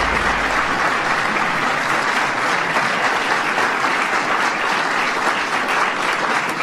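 Audience applauding steadily: the dense, even crackle of many hands clapping.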